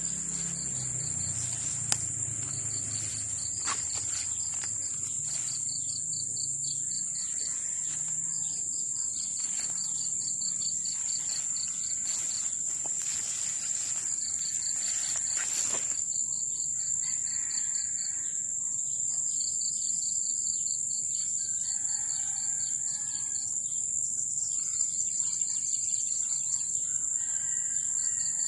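Insects calling: one holds a steady high-pitched drone, while another gives a pulsing chirp in short runs that keep repeating. There are a few brief clicks and rustles, the sharpest about two seconds in.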